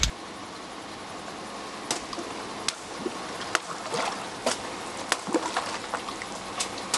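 A car tyre rolling slowly onto a row of water balloons: a series of sharp clicks and pops from about two seconds in as the balloons are squeezed and burst, water splashing, over a steady low hiss.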